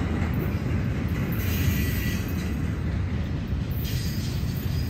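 Double-stack intermodal freight train rolling past, its container-laden well cars making a steady low rumble on the rails.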